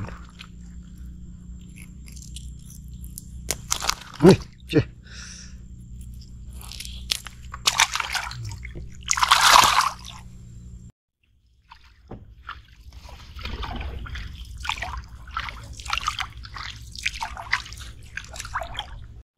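Swamp water splashing and sloshing, with scattered knocks and two louder splashes about eight and nine and a half seconds in. A steady low hum runs under the first half and cuts off abruptly.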